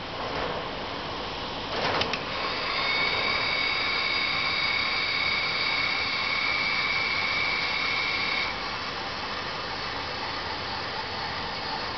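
Welding carriage's small electric drive motor running with a steady high whine for about six seconds, then stopping. A couple of clicks come just before it starts, over a steady hiss.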